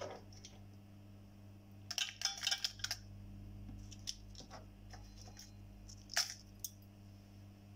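Cashew nuts dropped into a steel mixer-grinder jar, a quick cluster of light clicks on the metal about two seconds in, with a single click a little after six seconds, over a low steady hum.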